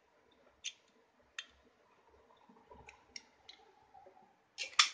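Screwdriver tip clicking against the piston rings and the bottom edge of a Jawa/Yezdi cylinder barrel as the rings are pressed in to let the barrel slide over the piston. A few separate sharp clicks about a second apart, with the loudest cluster near the end.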